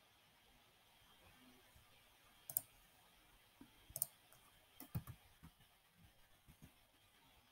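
Faint, scattered clicks of a computer keyboard and mouse during text editing, in twos and small clusters, the sharpest about two and a half, four and five seconds in.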